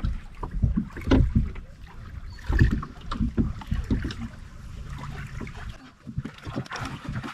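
Small waves lapping and slapping against a beached speedboat's hull, with irregular knocks and bumps, picked up by a camera mounted on the boat. A low wind rumble on the microphone runs under it.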